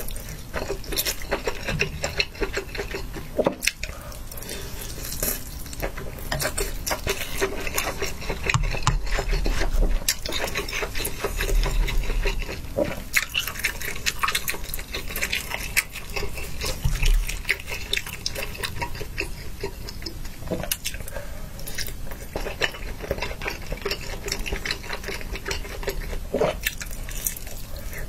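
Close-miked eating: slurping hot pot noodles and wet chewing of skewered fried balls, with a dense stream of small mouth clicks and smacks and a few dull low bumps.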